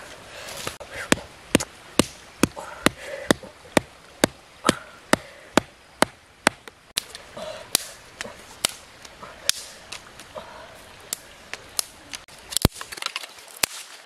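Sharp wooden knocks, about two a second, of a blade chopping wood.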